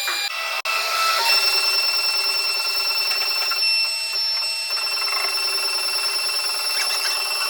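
CNC router spindle running at high speed, a steady high whine of several tones over a rough cutting noise as the bit works through wood. It breaks off for an instant about half a second in, then carries on.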